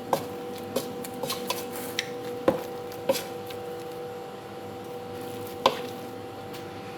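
Boiled potatoes being mashed in a bowl, the utensil knocking against the bowl with about eight irregular sharp knocks, the loudest about two and a half seconds in, over a steady hum.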